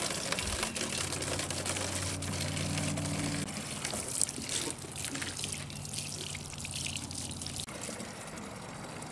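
Water from a garden hose pouring into the mouth of a plastic milk jug and splashing, as the jug is flushed through to check that it still drains.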